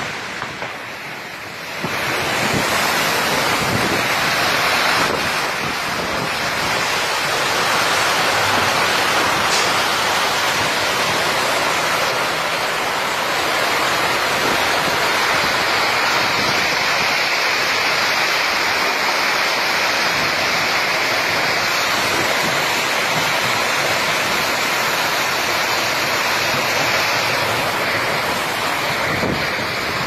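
Storm squall: strong wind and heavy rain in a loud, steady rush, with wind buffeting the microphone. It is quieter for the first couple of seconds, then swells about two seconds in and stays loud.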